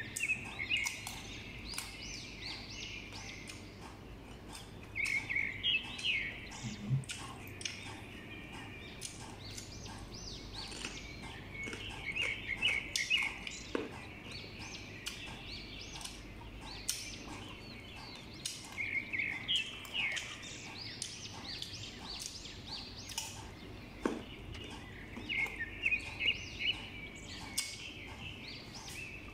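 Close-up chewing of crisp, unripe green mango slices: wet, crunchy mouth sounds in bursts of a couple of seconds, about every six seconds, with faint clicks in between.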